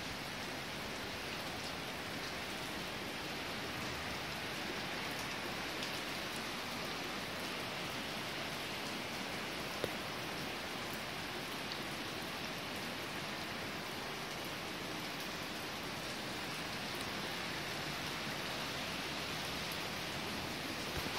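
Steady rain falling, an even hiss, with one small sharp tick about halfway through.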